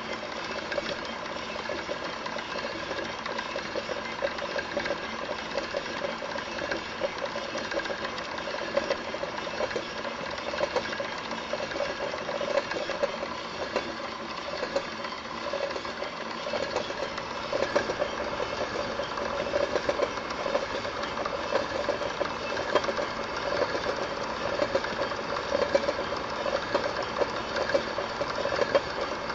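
Machine running with a steady mechanical hum and a fast rattle, shaking hard enough to set a stainless steel jug resting on it vibrating; the shaking and noise are suspected to come from an off-balance shaft.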